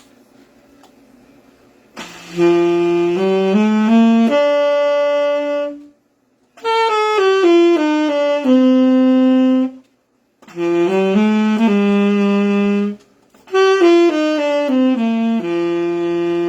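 Saxophone playing a simple melody in four short phrases, each a run of notes stepping along and ending on a held note. The notes are played with clean articulation and no ornaments: no vibrato, bends or growl.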